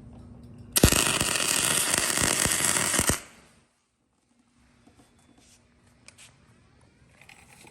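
MIG welding arc crackling loudly for about two and a half seconds, starting about a second in and stopping abruptly, with the Miller Deltaweld 302 power source turned to its highest setting and no shielding gas. A low steady hum from the machine is heard before the weld.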